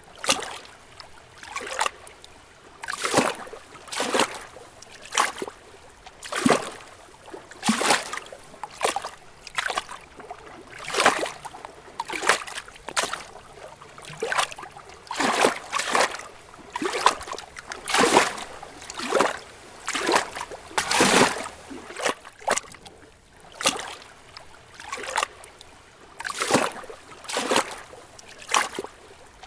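Small lake waves gently lapping against rocks, a soft splash about once a second, some stronger than others.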